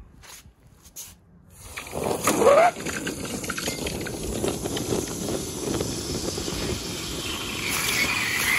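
A freshly cast, still-hot metal ingot quenched in a steel bowl of water. A few light clicks come first, then a sudden loud hiss and sizzle about two seconds in with a brief rising whistle, settling into a steady bubbling hiss as the water boils against the hot metal.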